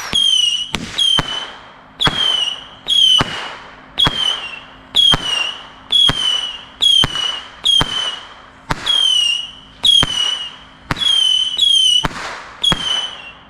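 A multi-shot consumer firework cake firing shot after shot, about two a second, with a sharp bang on each. Most shots are followed by a short, slightly falling whistle.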